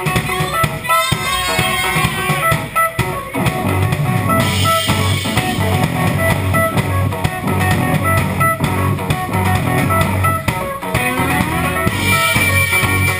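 Live rock band playing an instrumental passage: drum kit, electric guitar and keyboard, with sliding keyboard tones here and there.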